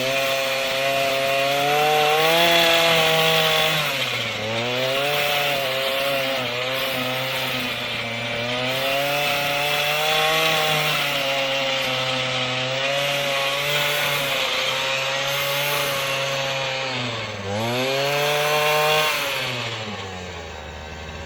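Earthquake MC33's 33cc two-stroke engine running at full throttle while the mini tiller digs into sod, its pitch wavering under the changing load and dipping sharply twice before recovering. Near the end it drops back to a lower, steady idle.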